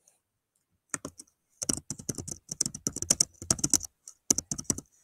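Typing on a computer keyboard: a fast run of key clicks that starts about a second in, after a short silence.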